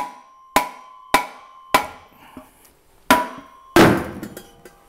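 Rubber mallet striking a motorcycle exhaust silencer to drift the internal tube out of its sleeve: six blows, four about every half second, then two more after a pause. Most blows leave the metal silencer ringing briefly with a single tone.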